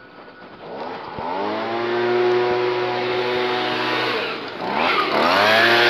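Small engine of a handheld lawn-care tool revving up from idle about a second in and held at high throttle, dropping off briefly near the end and then revving back up.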